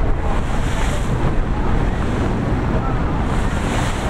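Wind buffeting the microphone over the steady wash of choppy open sea.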